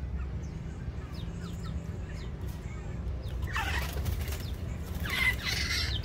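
Black-naped oriole's wings flapping as it leaves its perch: a short noisy flurry about three and a half seconds in and another about five seconds in. Faint short high chirps come before them.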